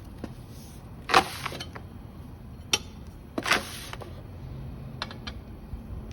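Metal tyre levers scraping and clicking against a scooter wheel rim as the bead of a new tyre is worked on, lubricated with bead cream. There is a loud scrape about a second in, another around the middle, a click between them and light clicks near the end.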